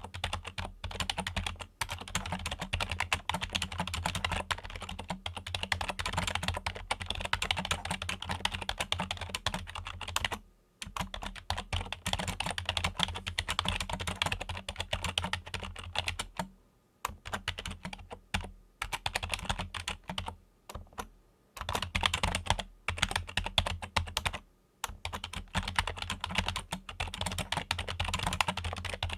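Fingers typing rapidly on a Logitech computer keyboard: a dense stream of key clicks, broken by a few brief pauses.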